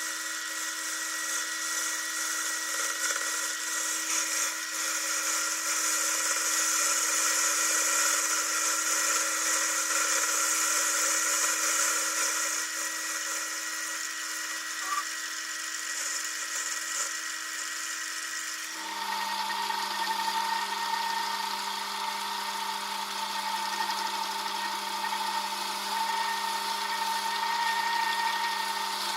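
Lathe running while turning an aluminium part, a steady motor whine with the hiss of the tool cutting, louder in the first half. About two-thirds through the motor tone changes suddenly to a different pitch.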